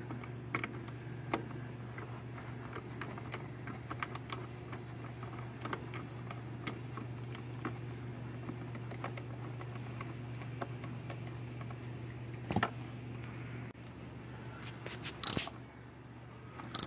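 Ratchet wrench with a Mortorq bit working a car seat-track bolt: scattered small metallic clicks and clinks, with a few louder clicks in the last few seconds, over a steady low hum.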